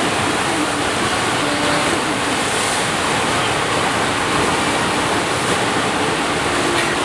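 Steady rush of water from a FlowRider sheet-wave machine, a thin sheet of water pumped up over the ride surface.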